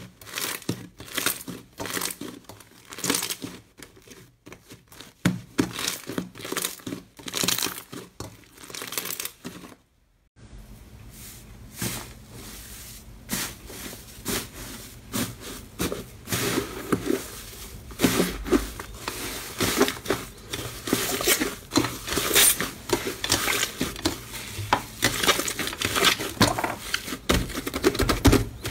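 Hands kneading and squeezing slime, making quick irregular clicks and pops. The sound stops briefly about ten seconds in, then a crumbly tofu-dregs-style slime is pressed and pulled apart by hand with the same dense clicking.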